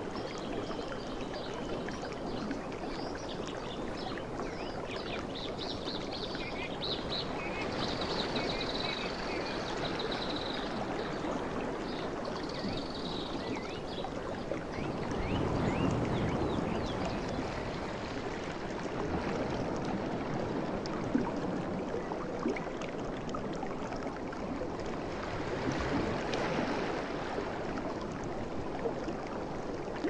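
Ocean surf washing onto a shore: a continuous rush of breaking waves that swells louder about halfway through and again near the end.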